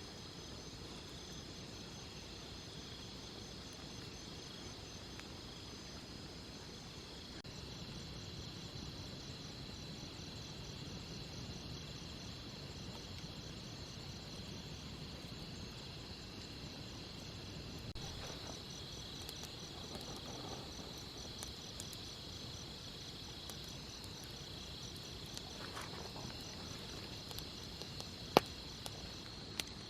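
Insects trilling steadily in several overlapping high-pitched songs, one of them evenly pulsed. A single sharp click sounds near the end.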